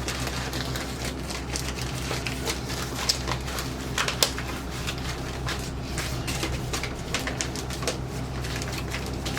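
Plastic sleeve crinkling and crackling in irregular bursts as paperwork is slid back into it, over a steady low hum.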